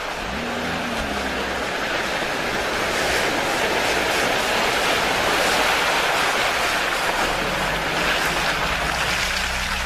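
Lada Niva 4x4 ploughing through a deep muddy puddle: a loud steady rush of splashing water and mud over a low engine drone, swelling as the car comes closer.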